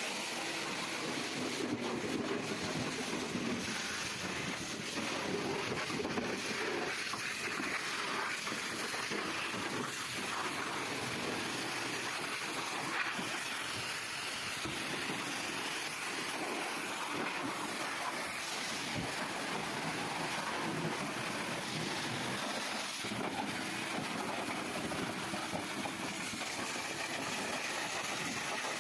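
Steady hiss of a car wash sprayer spraying onto the car.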